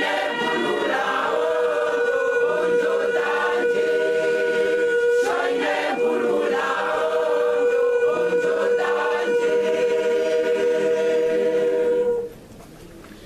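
Large choir singing together, holding one long sustained note over shifting voice parts; the singing stops abruptly near the end.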